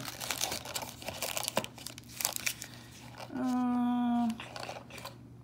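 Foil trading-card packs crinkling and crackling as a stack of them is handled and shuffled by hand. About three seconds in, a woman hums a steady 'mmm' for about a second, the loudest sound.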